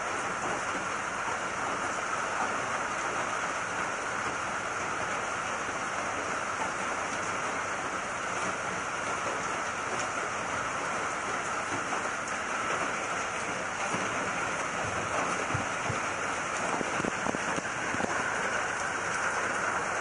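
Heavy tropical rain pouring down steadily, an unbroken hiss of rain with no let-up, growing slightly louder near the end.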